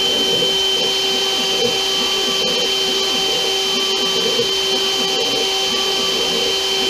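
CNC router running steadily, its spindle giving a constant high whine over an even rushing noise.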